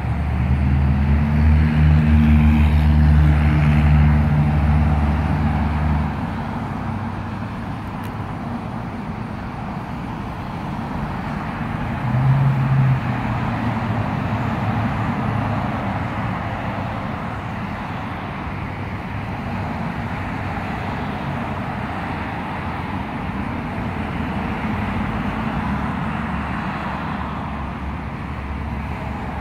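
Road traffic passing on a multi-lane road. A vehicle engine drones loudly for about the first six seconds and ends abruptly, then steady tyre and engine noise of passing cars, with another engine swelling briefly about twelve seconds in.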